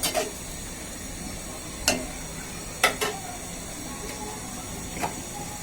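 A cooking spoon stirring spices and milk powder in a pan, knocking sharply against the metal about five times at irregular intervals, over a faint steady sizzle.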